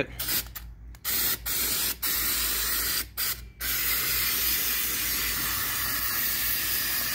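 Aerosol can of SEM copper weld primer spraying with a hiss that breaks off several times in the first few seconds and then runs steadily. The can keeps stopping on its own although the nozzle is not clogged, which the owner takes for a fault in the can.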